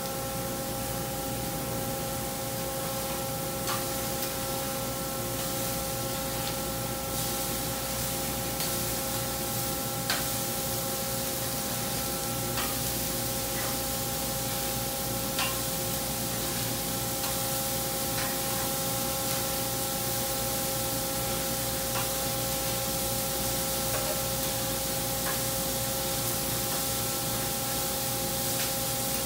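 Burger patties sizzling on a gas char-broiler, a steady hiss, over a steady hum of several pitches. A few light clicks as the patties are turned with a metal spatula, the sharpest about ten seconds in.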